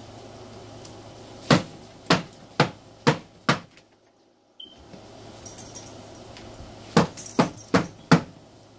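A series of sharp knocks on something hard: five about half a second apart, then after a pause four more in quick succession.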